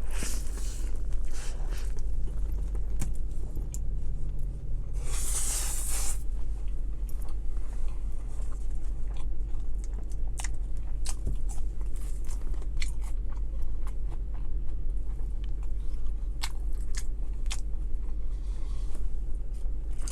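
Close-up chewing of a mouthful of McDonald's sandwich, with many small wet mouth clicks and crunches, and a short rush of noise about five seconds in. A steady low hum runs underneath.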